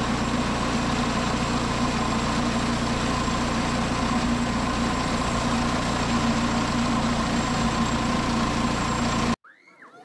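An engine running steadily at a constant speed, with a steady hum and no revving; it cuts off abruptly about nine and a half seconds in.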